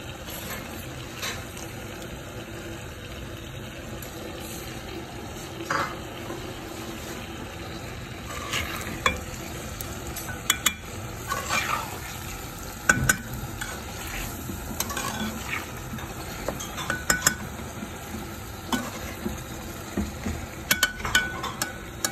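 Chicken pieces frying and sizzling in a metal pan, stirred with a slotted metal spatula that scrapes and clicks against the pan. The clicks come often from about eight seconds in.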